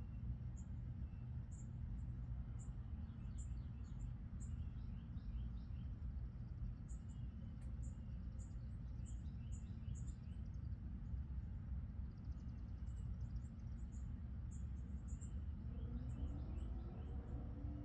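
Outdoor nature ambience: small birds chirping in short repeated calls with a fast insect-like trill about two-thirds through, over a steady low rumble. A lower call rises and falls near the end.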